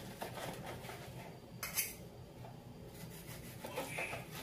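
A large kitchen knife cutting through boiled pork belly onto a plastic cutting board, with a fork clinking against the meat and knife as short knocks and scrapes. One louder, sharper stroke comes about a second and a half in.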